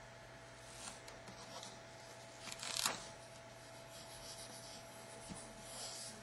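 Faint scratching and rubbing as a drawing under clear tape is traced into blue balsa foam, in a few irregular strokes with the loudest a little before halfway through, over a steady electrical hum.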